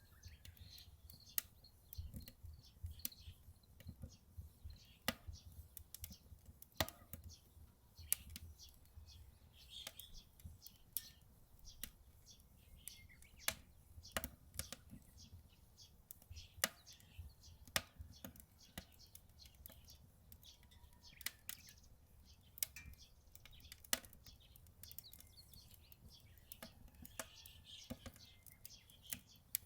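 Wood fire crackling in a Solo Stove Ranger fire pit: sharp, irregular snaps and pops over a steady low rumble, with a few faint bird chirps.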